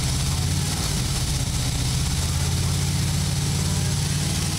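Harley-Davidson V-twin motorcycle engine running steadily at an even speed.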